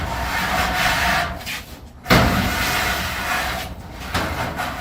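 Aluminium angle scraping and rattling as it is slid along behind a metal garage door's strut, in two bouts; the second starts sharply about two seconds in and fades away.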